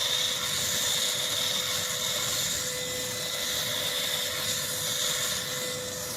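Cordless vacuum cleaner running steadily with a high whine from its motor.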